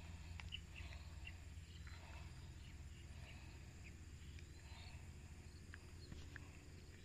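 Faint open-field ambience: scattered short high chirps of insects and birds over a low steady rumble, with a few soft clicks.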